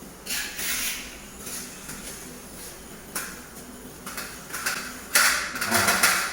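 Aerosol air-conditioner cleaner being sprayed onto the indoor unit in short hissing bursts, several times, with a louder, more broken run of spraying near the end.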